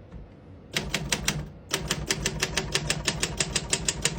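Keys of a 1971 Royal 470 manual typewriter being typed in quick succession, the type bars striking the platen. A brief run of strokes starts about a second in, then after a short gap the typing goes on at a steady pace of about seven strokes a second. The keys strike cleanly, none sticking.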